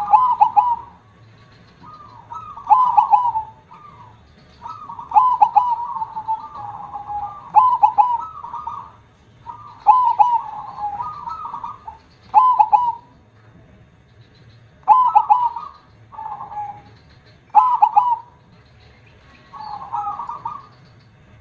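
Zebra dove (perkutut) cooing its song, a phrase of quick notes repeated every two to three seconds, in the big, full voice that fanciers call "kong".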